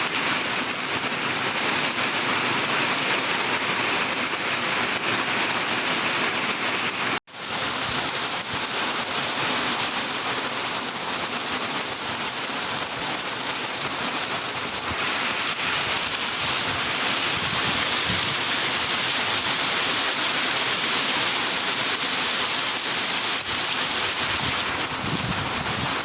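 Steady heavy rain falling on surfaces, an even hiss with a brief cut-out about seven seconds in.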